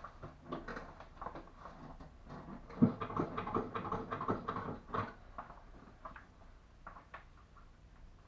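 Rustling and handling of a nylon barber cape being straightened around a seated client, with scattered light clicks and one sharp knock about three seconds in.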